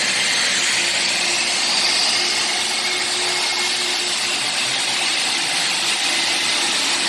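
Base Compact 433M wet floor cleaner with front nozzle running steadily: an even, loud suction-motor whirr with a faint steady hum.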